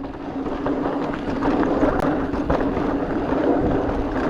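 Electric mountain bike ridden on a dirt trail: the mid-drive motor's steady whine under pedalling, over tyre noise and rattling clicks from the bike, building up in the first second.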